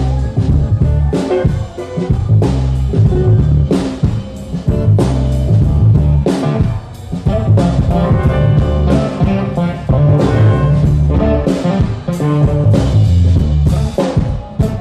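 Live blues-rock band playing loudly, with drum kit hits, electric guitar and bass notes.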